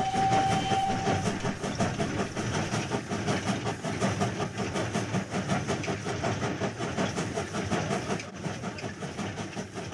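Sound effect of a train in a tunnel: a whistle held until about a second in, then the fast, steady clatter of a train running, easing off near the end.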